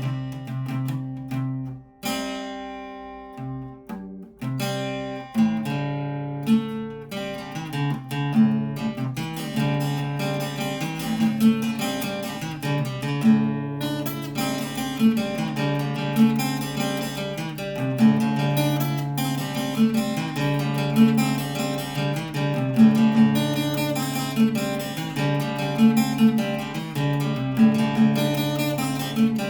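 Acoustic guitar music: a few single plucked notes and chords, settling after about five seconds into a steady, rhythmic strummed pattern.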